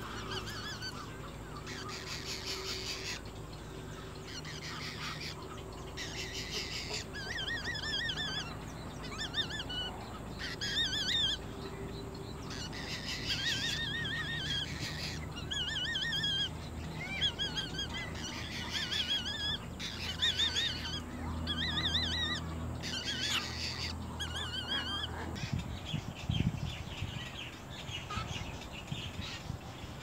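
Little egret chicks calling from the nest: repeated bursts of quick, wavering, nasal calls, over a steady low hum. A brief low thud near the end.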